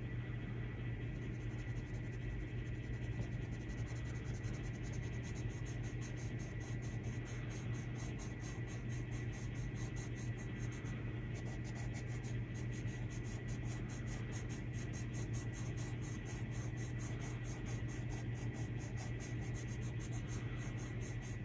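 Colored pencil scratching on paper as it shades, over a steady low hum and hiss.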